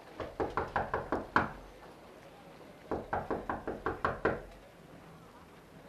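A visitor knocking from outside the house: two quick rounds of about seven or eight knocks, a second and a half apart, the last knock of each round the hardest.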